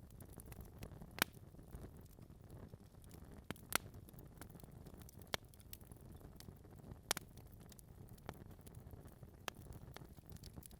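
Wood fire burning in a fireplace: a soft steady hiss and rumble of the flames with scattered crackles and pops from the logs, the sharpest about a second in, near four seconds and around seven seconds.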